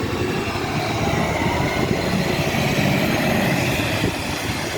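Road traffic: a passing motor vehicle's engine and tyre noise, swelling a little and easing toward the end, with a faint gliding engine whine.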